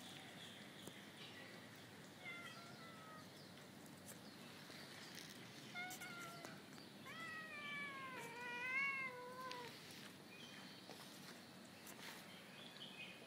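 A cat meowing four times: a short falling meow about two seconds in, another about six seconds in, then two longer, louder meows back to back about seven to nine and a half seconds in, the second rising and then falling.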